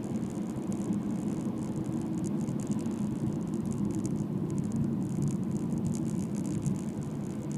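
A car driving along at road speed, heard from inside the cabin: a steady low rumble of engine and tyre noise, with a fluttering high hiss that drops back in the middle and returns near the end.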